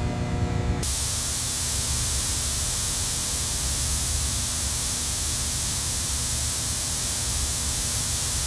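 A humming tone cuts off about a second in and a loud, steady spraying hiss starts at once, running evenly until it stops abruptly at the end.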